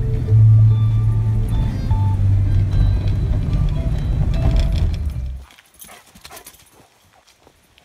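Music playing over the low drone of a moving car, heard from inside the cabin, with a bass line that steps between a few low notes. About five and a half seconds in it cuts off suddenly, leaving only faint scattered clicks.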